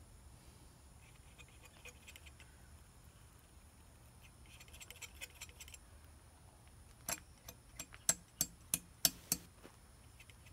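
Palette knife working paint: a patch of soft scratchy clicks a little before the middle, then a run of about eight sharp clicks, about three a second, in the second half.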